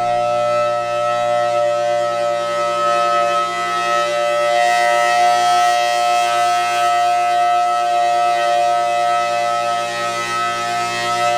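Federal Signal Thunderbolt 1000T warning siren sounding its steady alert tone, several pitches held together at an even, loud level. The siren is still a little 'sick', not quite its healthy sound.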